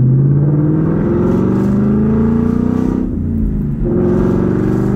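2021 Ford Mustang GT's 5.0 V8 accelerating through the gears with C&L muffler-delete axle-backs and a Roush H-pipe, heard from inside the cabin. Its pitch climbs for about three seconds, drops briefly at a manual upshift, then climbs again.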